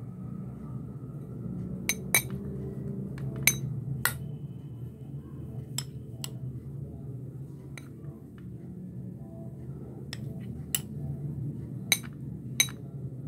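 A spoon clinking against a tall drinking glass about ten times at irregular intervals as ice cream is scooped into it, over a low steady hum.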